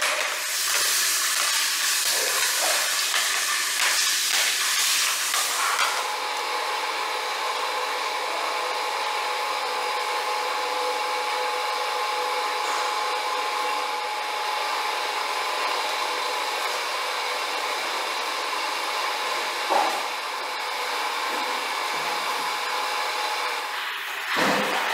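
Machinery running steadily: an even hiss carrying a few faint steady tones. For the first six seconds the hiss is brighter, with scattered clicks, before changing to the steadier, humming sound.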